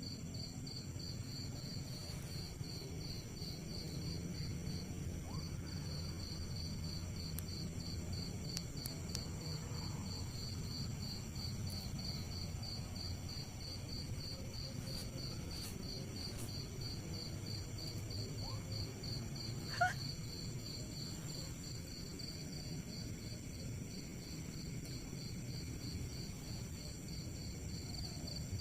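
Night insects, crickets, chirping steadily in a fast pulsing rhythm, over a steady higher buzz and a low background rumble. A single brief sharp sound stands out about twenty seconds in.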